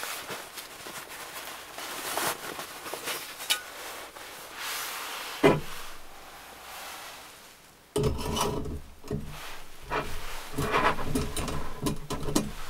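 Fabric stuff sack rustling as a stainless steel stove-top heater is taken out, then metal scraping and clinking as its perforated cylinder is handled and set onto the pot supports of a small gas-canister stove. One sharp click about five and a half seconds in; the handling gets louder after about eight seconds.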